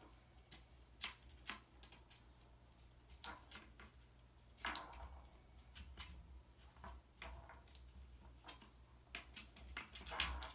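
Glass marbles in the wooden track of a scratching-post base, batted by kittens' paws: irregular light clicks and knocks as the marbles roll and strike the track walls.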